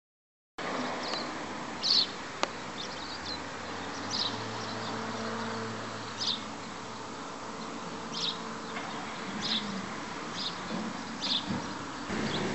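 Outdoor ambience of short, high chirps recurring every second or two over a low, steady hum of idling engines, with one sharp click a couple of seconds in.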